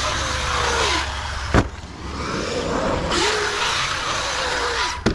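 Arrma Kraton 8S EXB RC truck's brushless motor whining as it speeds up and then winds down, twice. Each run ends in a sharp, loud impact, one about a second and a half in and one near the end.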